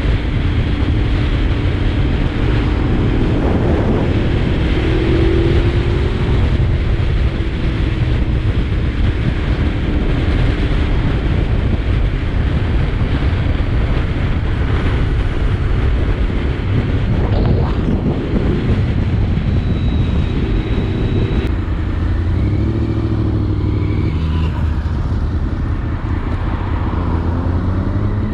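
Honda VFR750's V4 engine running under way, mixed with heavy wind rush on the microphone. The engine pitch falls and rises again around the middle and in the last third, and climbs near the end as the bike accelerates.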